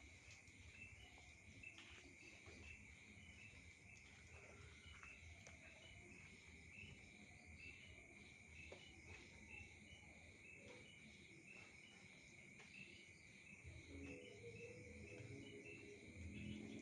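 Faint chorus of night insects: a continuous high trill with short chirps repeating about twice a second over it. A lower, fainter sound joins near the end.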